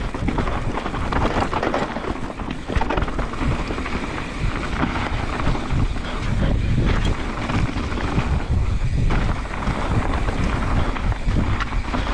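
Wind buffeting the camera microphone over the crunch and rattle of a mountain bike rolling fast down a rocky dirt trail.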